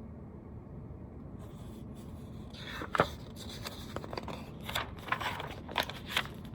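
Paper rustling and scraping as a picture book's pages are handled and turned, with a sharp click about three seconds in, over a steady low room hum.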